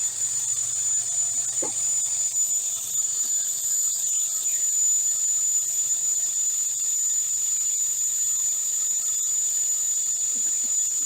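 Sliding table saw with a three-phase motor running steadily: a constant high-pitched whine over a hiss.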